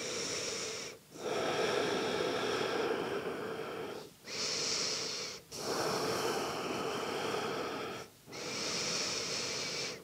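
A person breathing slowly and deeply, close to the microphone: long audible breaths in and out, each one to three seconds, with brief pauses between them.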